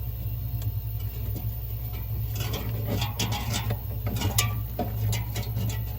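Scattered light clicks and taps of refrigerator evaporator-fan parts being handled, over a steady low hum.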